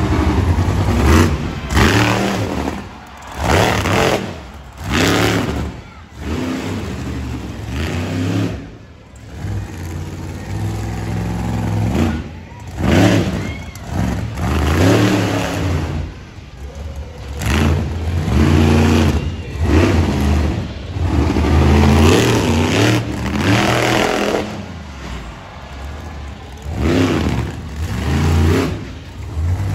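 Monster truck engine revving hard again and again. Each burst climbs and falls in pitch, with short dips of a second or two between them.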